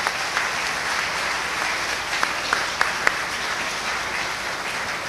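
Audience of schoolchildren applauding: many hands clapping steadily, with a few louder single claps standing out about two to three seconds in.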